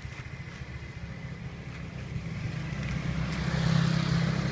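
A motor vehicle's engine running, a fast-pulsing low rumble that gets louder through the second half.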